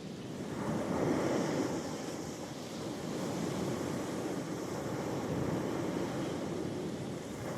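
Ocean waves breaking and washing in as surf, swelling about a second in and then holding a steady wash.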